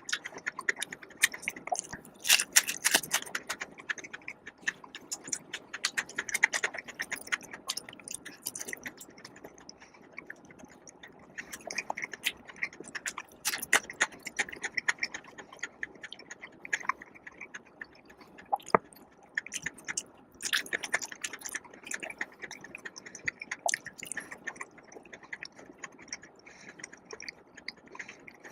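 Close-miked eating: chewing with crisp, crackly bites and wet mouth sounds, coming in irregular clusters with short quieter pauses.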